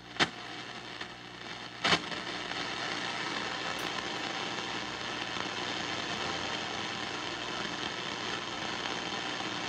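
Steady shortwave static and hiss from a 1950s Telefunken Concertino 7 tube radio's speaker, turned up loud, with no station tuned in. Two sharp clicks come in the first two seconds, and then the hiss holds even.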